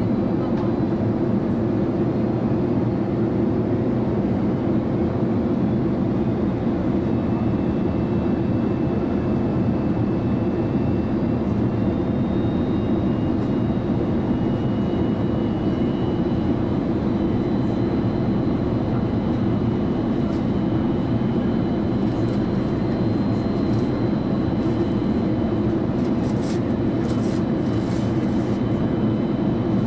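Airbus A330 jet engines and rushing airflow heard inside the cabin on approach: a steady deep roar, with a faint high whine that shifts slightly in pitch partway through.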